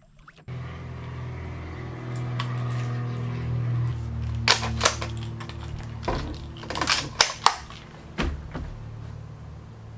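Scoped bolt-action rifle being handled and loaded: a string of sharp clicks and clacks, two close together, then a quick cluster, then a last couple, over a steady low hum.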